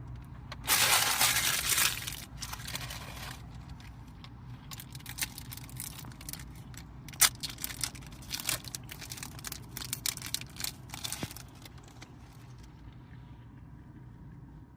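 Hockey card pack being torn open, with a loud tear about a second in, then the wrapper crinkling and cards being handled in short crackles and clicks that die away near the end. A low steady hum runs underneath.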